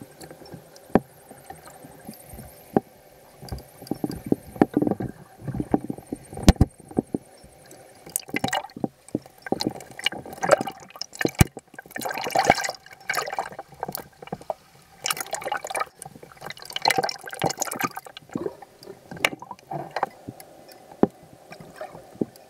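Water sloshing and bubbling around an underwater camera held just below the sea surface, coming in uneven surges, with sharp clicks and knocks scattered through.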